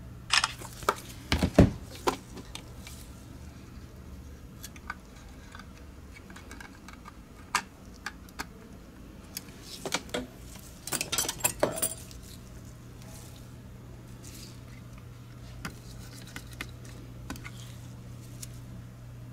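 Sharp clicks and clatter of small plastic and metal parts of a Logitech G Pro X Superlight mouse being handled and fitted during reassembly, in a cluster in the first two seconds and another around ten to twelve seconds in, with scattered single ticks between, over a steady low hum.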